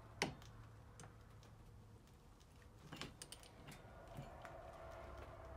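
A torque wrench tightening a bolt, with one sharp click about a quarter second in, the click of the wrench reaching its set torque. A few lighter metal clicks and taps follow near three seconds as the socket is handled.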